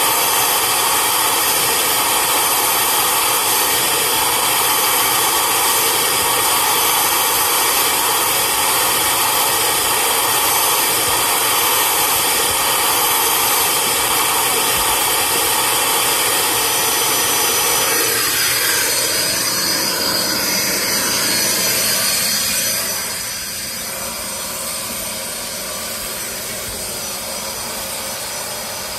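Vacuum motor of a detailing extractor running steadily with a high whine. About two-thirds of the way through the sound changes and becomes quieter, then carries on steadily.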